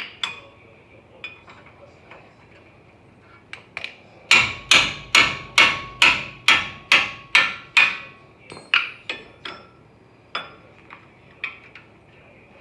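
Hammer blows: a few light taps, then a run of about ten hard strikes at roughly two to three a second, then a handful of lighter taps.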